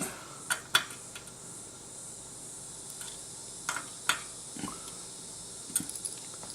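Light metallic clicks and taps, about seven at irregular spacing, from a screwdriver and small screws on the metal mounting brackets as they are fastened to the back of a CPU cooler.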